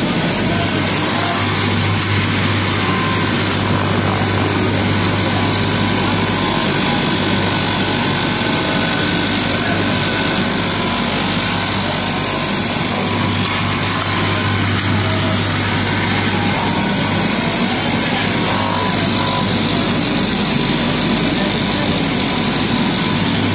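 Electric straight-knife cloth cutting machine running steadily as its upright reciprocating blade cuts through a tall stack of layered cotton fleece. A low hum swells and fades in stretches.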